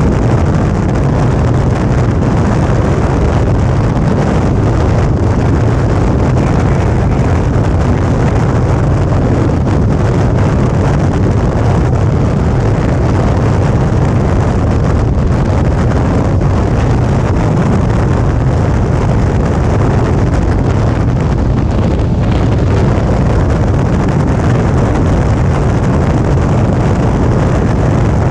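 Suzuki V-Strom 650's V-twin engine running steadily at cruising speed, under heavy wind rush on the microphone.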